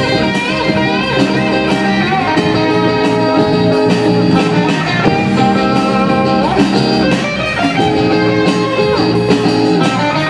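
Rock band playing: electric guitars holding chords with a few sliding notes, over electric bass and a drum kit keeping a steady beat with cymbal hits.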